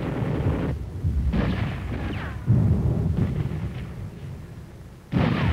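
Battle gunfire and explosions: a run of shots and blasts with heavy rumbling echoes, the loudest about two and a half seconds in, dying away near the end. A short falling whistle cuts through about two seconds in.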